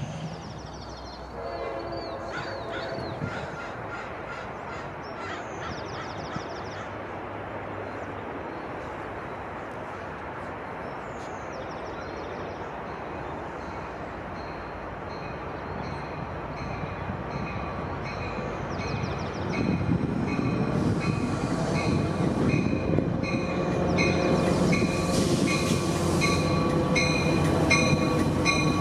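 A diesel-hauled passenger train approaches and grows louder from about twenty seconds in, its horn sounding and its bell ringing in a steady repeated pattern. Faint bird chirps come in the first few seconds.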